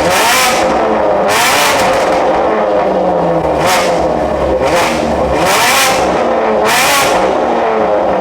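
BMW G82 M4's S58 twin-turbo straight-six running through a freshly fitted full Valvetronic stainless exhaust, revved in several short blips above idle, each rise in pitch coming with a loud burst of exhaust noise.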